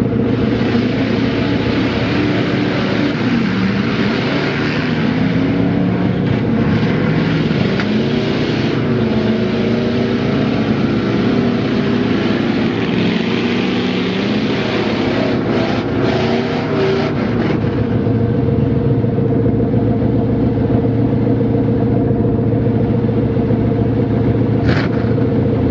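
Lifted Ford 4x4 mud truck's engine revving up and down as its tyres churn through a mud pit, over a hissing wash of noise. After about seventeen seconds the hiss drops away and the engine settles to a steadier drone.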